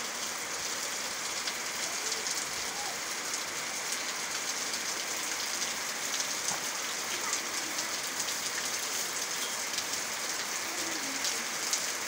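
Heavy rain falling steadily: an even, dense hiss with a fine patter of individual drops.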